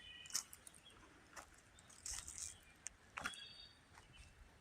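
Faint, sparse bird chirps, a few short calls in a quiet outdoor morning, with several soft clicks in between.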